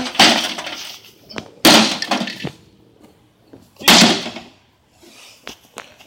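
A baseball bat smashing into a microwave oven's casing: three hard strikes, about two seconds apart.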